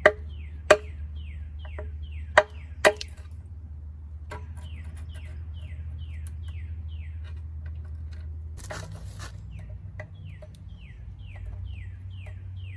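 A bird calling in runs of short, quick chirps, each falling in pitch, about three a second. Four sharp knocks come in the first three seconds, and a brief hiss follows about nine seconds in, over a steady low hum.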